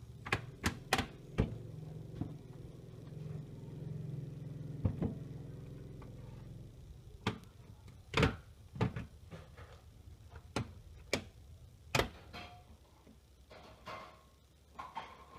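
Plastic retaining clips of an Asus X453 laptop's keyboard top case snapping loose as the case is pried apart: a string of separate sharp clicks and snaps at uneven intervals, with a low steady hum under the first half.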